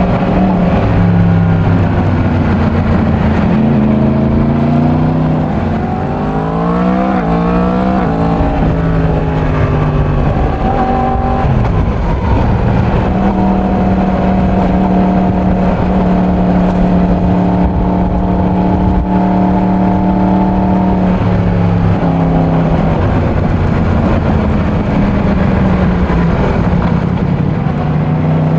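Yamaha MT-10's crossplane inline-four running through its stock exhaust while riding. The engine pitch climbs under acceleration a few seconds in, then falls. It holds a steady cruising note for several seconds and rises again near the end.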